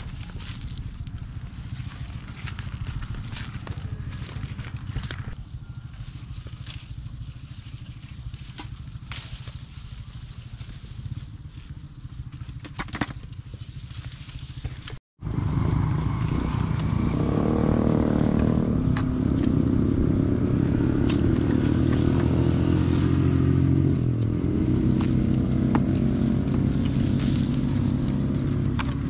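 An engine running steadily, a low drone with scattered light clicks over it. After a brief cut-out about halfway it comes back much louder and clearer, holding an even pitch.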